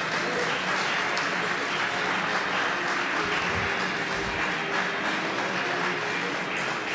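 A live audience clapping steadily.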